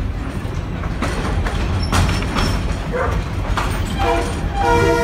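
Old railway passenger car rolling along, heard from inside: a steady low rumble with knocks about once a second. About four seconds in, the train's horn starts sounding, a steady chord of several tones.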